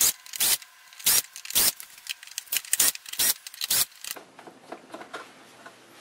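Milwaukee M12 cordless drill/driver backing Phillips screws out of a plastic housing in short bursts, about nine in four seconds, then quieter handling sounds.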